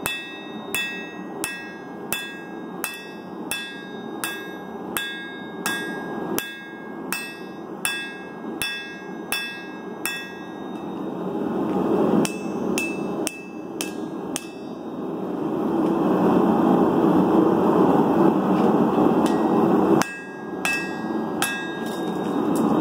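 Hand hammer striking hot steel on an anvil as a tomahawk head is forged, each blow leaving a bright metallic ring. The blows come at about one and a half a second for the first ten seconds, then a few scattered ones, and resume near the end. Under the blows runs the forge's steady roar, which grows louder in the middle.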